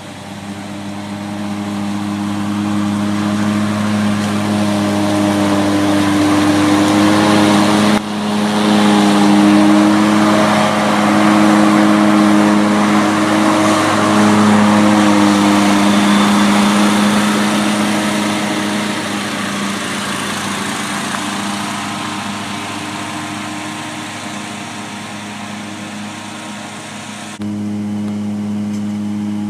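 Engine of a Ferris IS 2100Z commercial zero-turn mower, a 28 horsepower Briggs & Stratton, running steadily while mowing. It grows louder as the mower comes near over the first few seconds, then slowly fades as it moves away.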